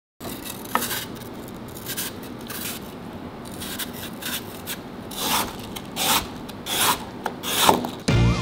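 Irregular rasping, rubbing strokes, growing louder from about halfway through; music comes in near the end.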